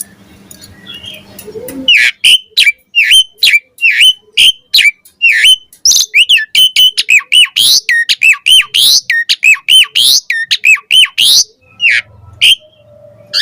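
Asian pied starling singing: a rapid run of loud, sweeping whistled notes, about three a second, starting about two seconds in and breaking off near the end.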